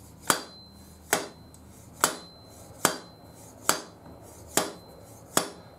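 A seal driver striking a new oil seal down into a Honda CB750F2 front fork leg: seven even, sharp taps about one every 0.85 s, some with a faint metallic ring after them. The strokes are seating the seal until it bottoms in its bore.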